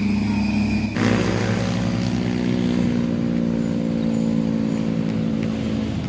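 A bus's engine running close by, a steady low hum that comes in abruptly about a second in and sinks slightly in pitch as the bus moves past.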